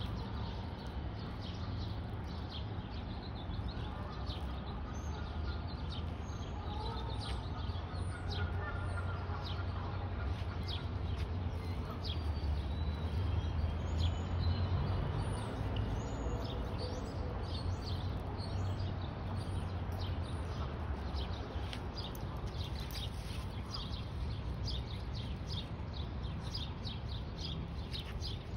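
Small birds chirping over and over, the chirps coming thicker in the second half, over a low steady rumble that swells in the middle.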